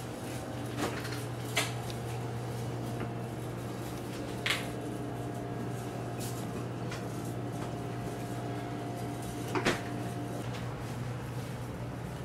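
A few short, sharp household knocks and clicks spread through, with two loudest close together near the end, over a steady low hum.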